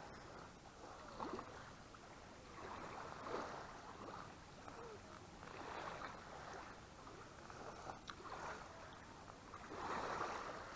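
Faint lake water lapping in soft, irregular swells every second or two.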